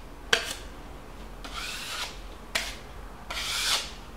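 Steel putty knife scraping ready-mixed plastic stucco across a plaster wall in a few hissing strokes, with a sharp click of the blade about a third of a second in and another just past halfway. The excess filler is being pressed off and collected over hairline cracks.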